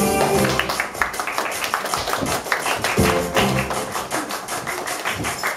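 Stage-show backing music with a fast run of sharp percussive clicks and short low notes coming in now and then.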